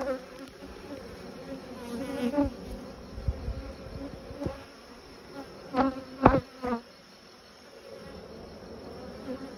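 Honeybees of an open, queenless colony buzzing over the frames: a steady hum, with louder swells about 2 s and 6 s in.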